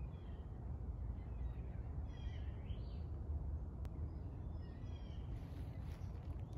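Birds calling in the distance, a few short calls with one rising call near the middle, over a steady low rumble.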